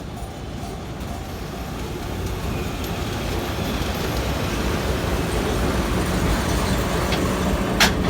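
Sagano scenic railway train with its diesel locomotive approaching and passing a level crossing, its rumble growing steadily louder. The crossing bell is dinging about twice a second at first. A single sharp metallic click comes near the end.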